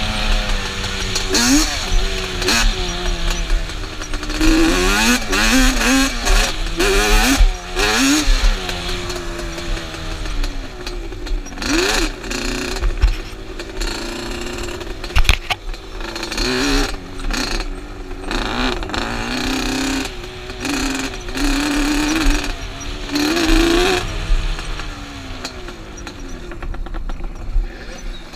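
Yamaha Banshee's twin-cylinder two-stroke engine revving up and down as the quad is ridden over a dirt trail, its pitch climbing and dropping again and again. Wind rushes over the microphone in gusts.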